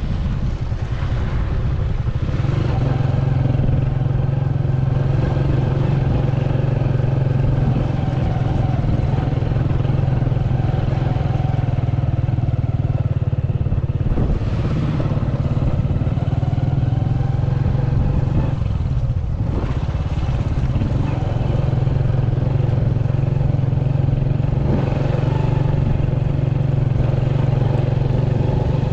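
Vehicle engine running steadily under way on a dirt road, a low steady hum that eases briefly about halfway through and again a few seconds later.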